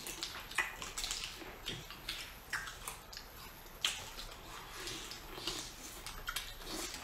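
Boiled crawfish being eaten: wet sucking and slurping as the meat and juice are sucked from the shells, in irregular short noises a second or so apart.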